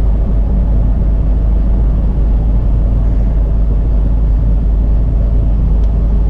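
Steady low rumble inside a semi-truck's cab: the truck's diesel engine and drivetrain running at an even level.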